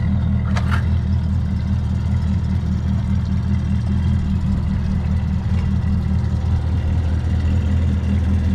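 2019 Mercury 9.9 hp four-stroke kicker outboard running steadily at part throttle, pushing the boat through the water with a low, even hum. There is one brief sharp sound about half a second in.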